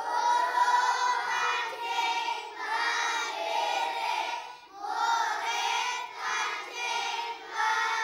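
A class of young children reading aloud in unison, a sing-song group chant in a few drawn-out phrases with short breaks between them.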